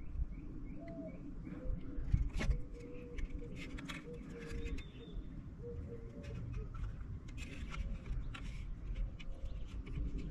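A bird cooing in low repeated notes, with scattered clicks and knocks as the cover plate is fitted back onto the golf-cart motor unit's housing. The loudest knock comes about two and a half seconds in.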